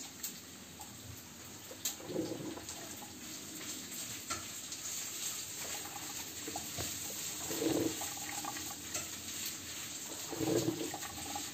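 Vestel grind-and-brew drip coffee maker heating and passing water through on its first rinse cycle: a steady hiss with a few short gurgles.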